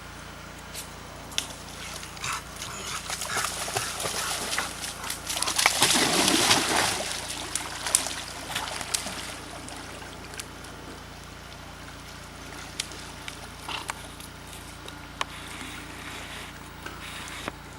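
A dog splashing in pond water, building to a loud flurry of splashing about six seconds in, then small scattered splashes and clicks.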